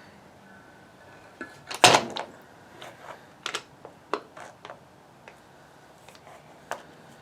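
Metal parts of a winch clicking and knocking as it is taken apart by hand: one loud knock about two seconds in, then scattered lighter clicks.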